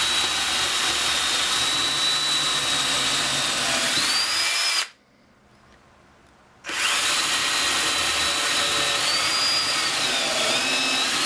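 Milwaukee portable electric drill boring pilot holes through wood: a steady motor whine that stops for about two seconds near the middle and then starts again for a second hole, its pitch shifting near the end of each run.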